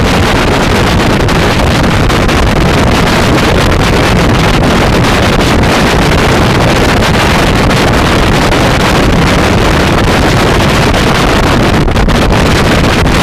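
Loud, steady wind noise buffeting the microphone of a Kymco Xciting 400i maxi-scooter at riding speed.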